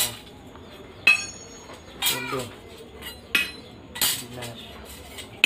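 Metal grass-sickle blades clinking against one another as a bundle of them is handled and sorted: a sharp metallic clink with a short ring about a second in, and more clinks a little after three and four seconds in.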